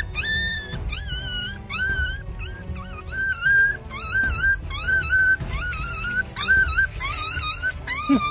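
Young puppies whining and crying in distress, a run of high, short cries about two a second, each rising sharply and then holding its pitch.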